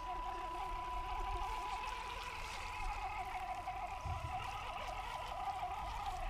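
Small RC truck's 370 brushed motor and plastic gearbox whining as it drives through shallow muddy water, the pitch wavering as the throttle changes.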